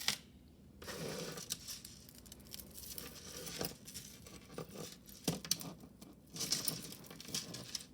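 Costume jewelry being handled and sorted: light metal clicks and clinks of chains and small pieces, with rustling.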